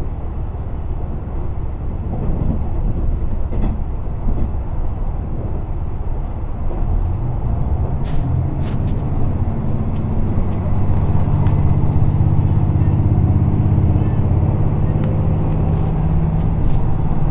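Train running noise heard from inside a carriage: a steady low rumble of the wheels on the track that grows louder about ten seconds in, where a steady low hum joins. A few sharp clicks come around eight seconds in, and a faint high whine climbs slowly through the second half.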